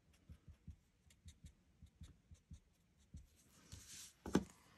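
Stampin' Blends alcohol marker colouring on cardstock: faint scratchy strokes with small ticks, then a brief rustle and a single louder knock near the end.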